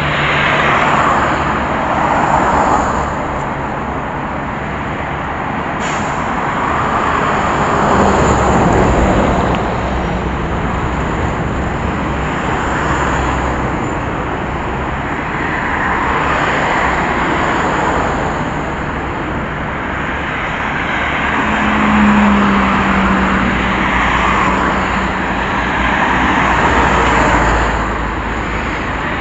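Road traffic: cars passing one after another on a busy road, their tyre and engine noise swelling and fading every few seconds. About two thirds of the way through, one passing vehicle adds a low steady engine note for a couple of seconds.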